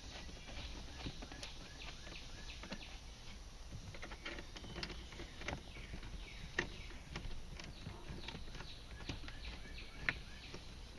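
Irregular light clicks and taps of hand work on plastic dashboard trim: screws being tightened and panels handled and fitted back in place, over a faint steady background hum.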